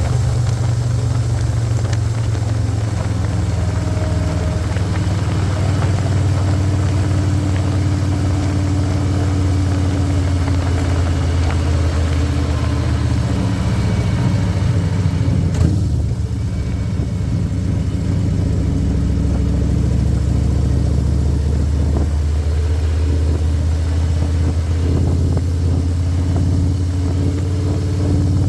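Harley-Davidson Electra Glide Standard's Milwaukee-Eight V-twin engine running steadily under way on the road, with wind rush over it. The engine note changes about halfway through, then settles into a steady run again.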